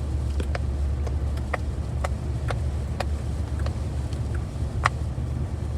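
Steady low rumble of a car cabin on the move, with short sharp clicks about twice a second.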